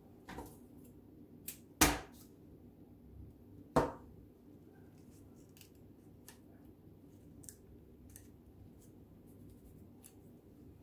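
Hands handling and pressing cut paper strips onto a paper collage on a plastic-covered table: light rustling with a few sharp taps and clicks, the loudest about two seconds in and another near four seconds.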